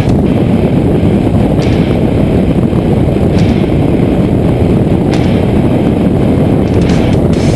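A 2010 KTM 690 Enduro R riding at road speed: heavy, steady wind buffeting on the camera mixed with the single-cylinder engine's running.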